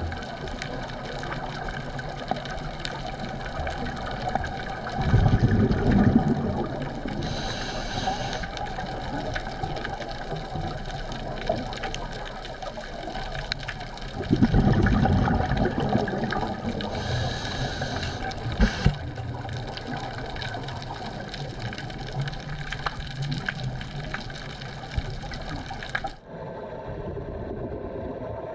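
Scuba diver breathing through a regulator underwater: two loud rushes of exhaled bubbles about nine seconds apart, each followed by a short hiss of inhaled air, over a steady mechanical hum. Near the end the sound cuts abruptly to a thinner, quieter engine-like hum.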